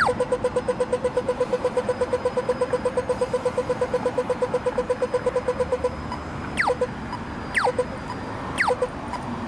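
Pedestrian crossing's audible signal: rapid, even beeping at about seven or eight beeps a second, which about six seconds in changes to a falling electronic chirp about once a second as the green-man countdown runs. Traffic hum underneath.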